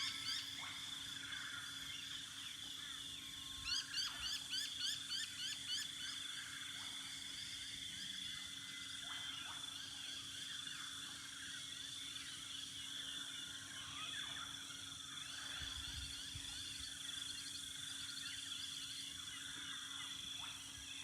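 Dawn chorus of many wild birds singing and calling at once: overlapping chirps and fast runs of repeated falling notes, busiest a few seconds in. A faint steady low hum lies underneath.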